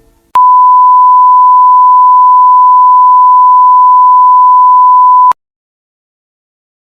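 A steady electronic test tone: one pure, unwavering pitch, loud, held for about five seconds before cutting off abruptly.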